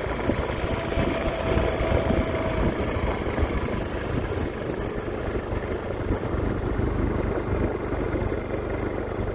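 Steady running noise of a moving road vehicle: engine hum mixed with wind and road rumble, heaviest in the low end.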